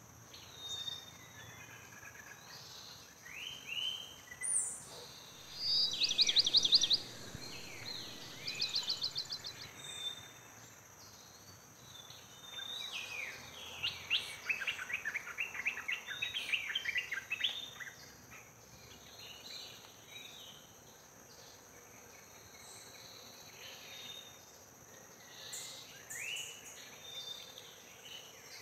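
Birds chirping and calling, with a fast trill about six seconds in and a busy run of chirps around the middle, over a steady high-pitched insect drone.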